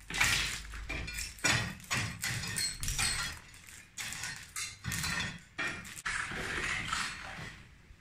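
Irregular hammer blows breaking out balcony brickwork, about a dozen sharp strikes, with broken masonry clattering down.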